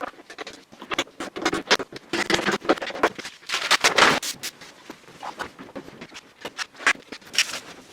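Rapid, irregular clatter of knocks and scraping from work in a garage, with many short sharp hits at uneven spacing and no steady rhythm.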